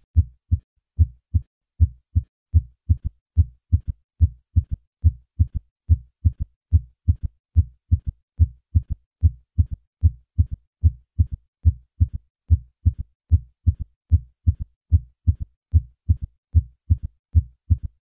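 Recorded heart sounds in a steady, even rhythm of short, dull thumps, played as an example of a third heart sound, a faint extra sound just after the second heart sound in each beat. Over the age of 40 this sound usually indicates decreased left ventricular function.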